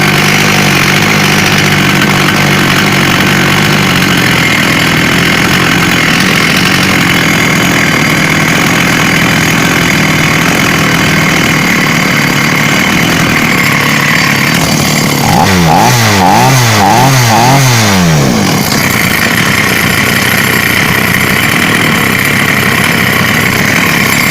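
Chinese two-stroke chainsaw engine running steadily after a major overhaul. About fifteen seconds in it is revved up and down several times in quick succession, then settles back to a steady run.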